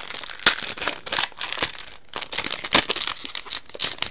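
Foil booster pack wrapper crinkling and crackling as it is handled and torn open by hand, a dense run of sharp crackles that stops right at the end.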